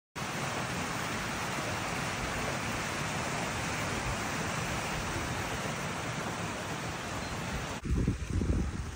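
Steady rushing of water, an even noise with no rhythm. Near the end it cuts to gusty wind buffeting the microphone.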